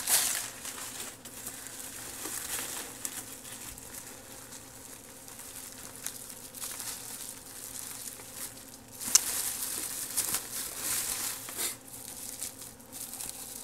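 Bubble wrap crinkling and rustling as hands pull a motherboard out of it, in uneven bouts that grow louder about nine seconds in, with one sharp crackle at that point. A faint steady hum lies underneath.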